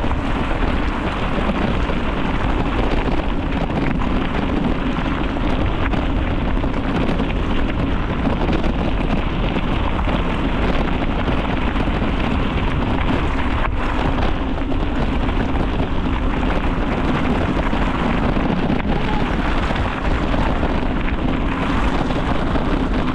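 Steady wind rushing over the microphone of a bicycle moving along a trail, mixed with the rolling noise of its tyres.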